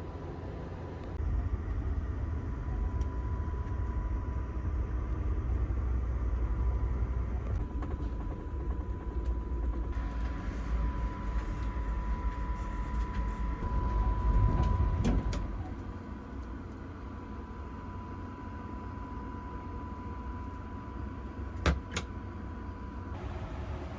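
Coast Starlight passenger train rumbling along the track, louder for the first fifteen seconds or so and then easing. A steady high hum runs under it, and two sharp clicks come near the end.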